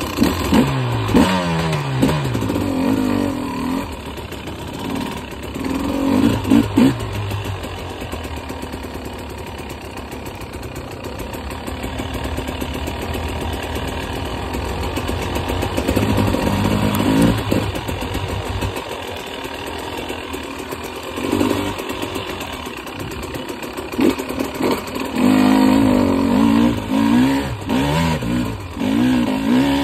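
2022 KTM 300 XC's single-cylinder two-stroke engine being ridden along a wooded dirt-bike trail, heard close up from a phone mounted on the handlebars. The revs rise and fall again and again as the throttle is opened and closed, with harder bursts about six seconds in and over the last few seconds.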